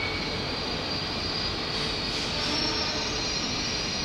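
Keikyu electric train running on curved track, its wheels giving a steady high-pitched squeal over a low rumble. The squeal swells a little past the middle.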